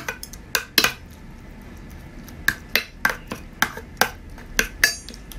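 Metal spoon clinking and scraping against a stainless steel bowl while stirring wet food. A few clinks at the start, a pause of about a second and a half, then quicker clinks, about four a second, some ringing briefly.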